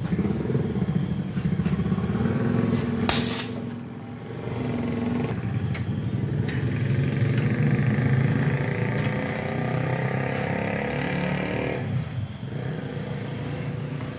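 An engine running steadily at idle with a close, even pulse and a slightly wavering pitch. A short hiss comes about three seconds in.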